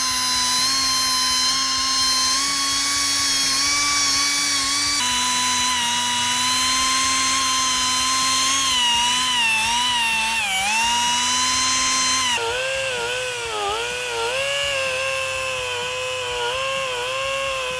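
Air-powered narrow-belt file sander running with a steady high whine, its pitch sagging and wavering as it is pressed onto the brazed fillet of a steel bicycle frame joint. The pitch changes abruptly twice, about five and twelve seconds in.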